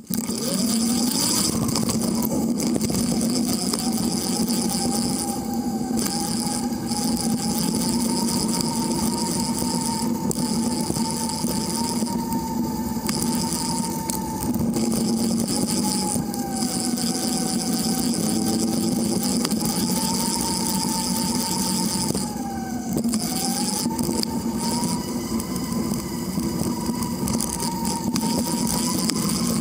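Riding noise picked up by a bike-mounted camera rolling along a street: steady tyre and road rumble with wind hiss, and a whine that wavers in pitch as the speed changes, dipping briefly about twenty-three seconds in.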